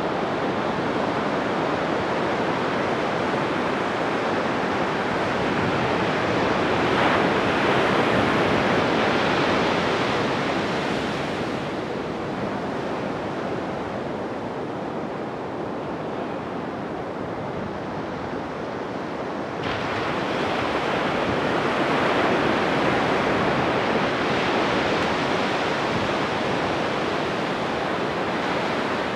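Pacific Ocean surf breaking on a beach: a continuous rushing wash of waves that swells about seven seconds in, eases off in the middle, and rises again abruptly about twenty seconds in.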